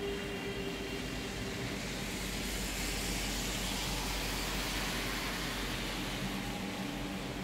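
A passing vehicle: a broad rushing noise swells up about two seconds in and fades away again over the next four seconds or so, over a low steady rumble.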